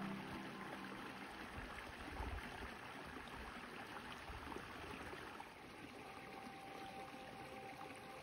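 Small snowmelt stream running over rocks and under fallen wood, a steady soft rush and trickle of water.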